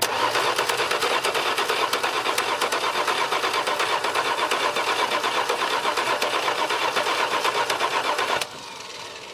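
1964 Dodge Dart GT's engine being cranked over by its starter motor, a steady rhythmic churning that doesn't catch or fire, stopping suddenly after about eight and a half seconds. The engine turns freely but won't start, which the owner puts down to no spark.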